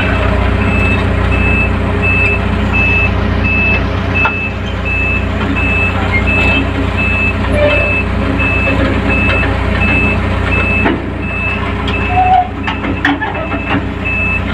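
Grove GMK5130 mobile crane heard from the operator's cab while its boom telescopes out: the engine runs steadily under a high warning beep repeating about twice a second. A few light clicks and knocks come near the end.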